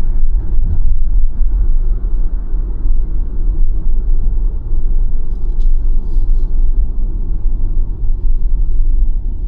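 Steady low road and tyre rumble from a BYD Sealion 7 electric SUV on the move, with no engine note.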